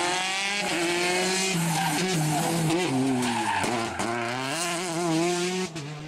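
Peugeot 208 T16 R5 rally car's turbocharged four-cylinder engine revving hard, its pitch climbing and dropping several times through gear changes, with a few sharp cracks about two thirds of the way through. Tyres skid on tarmac as the car slides through a hairpin.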